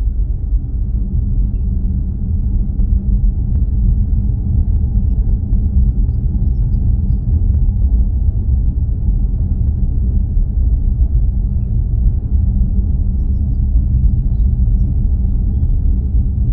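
A loud, steady low rumble that swells up just before and then holds at an even level.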